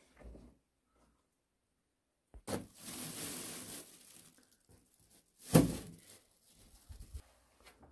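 Handling sounds: a rustling scrape lasting about a second and a half, then a single sharp knock a couple of seconds later, followed by a few light clicks.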